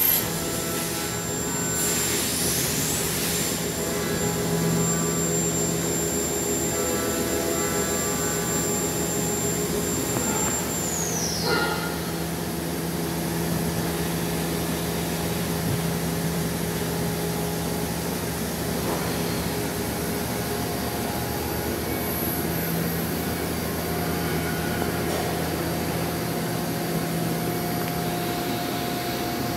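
Mazak VCU 500A 5X five-axis CNC vertical machining center running a machining cycle, a steady mechanical hum with coolant spraying inside the enclosure. A high whine over it glides down and stops about eleven seconds in.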